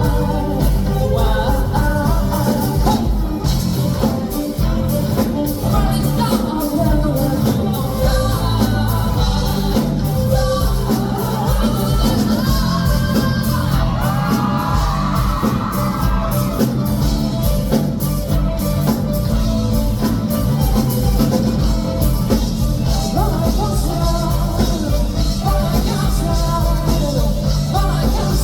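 Live band playing a rock song with a singer, loud and continuous.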